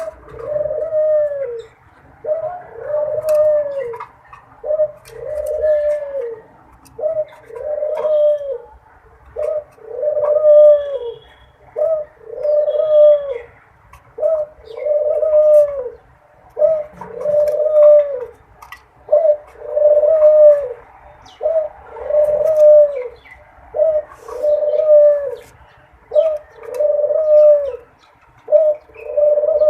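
A dove cooing over and over in a steady rhythm: about twenty soft, low coos, each swelling up and falling away over about a second, one after another every second and a half or so.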